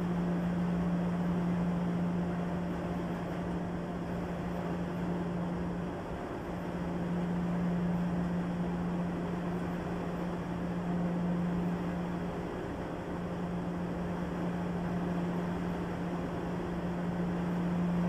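Steady hiss with a strong, low, steady hum underneath, the hum dipping briefly twice: electronic equipment and cooling fans running.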